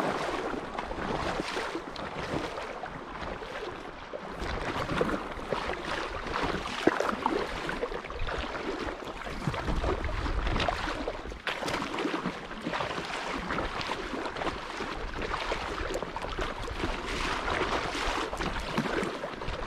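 Lake water lapping and splashing against a moving kayak's hull in small, irregular splashes. Wind buffets the microphone now and then as a low rumble.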